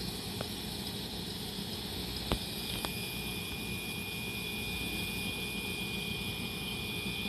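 Ex-Keio Inokashira Line electric railcar standing at the platform, its on-board equipment humming steadily with a thin high whine. A few faint clicks.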